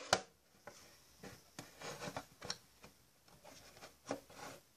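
Faint handling sounds of a plastic Play-Doh toy and dough: light scattered clicks, taps and rubbing, a few a second.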